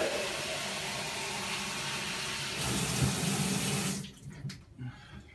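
Water poured into the drum of a front-load washer, about a quart at a time: a steady splashing rush that stops abruptly about four seconds in, followed by a few faint knocks.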